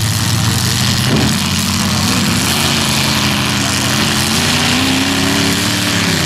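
Several demolition derby cars' engines running, one revving repeatedly, its pitch climbing and falling over the last few seconds.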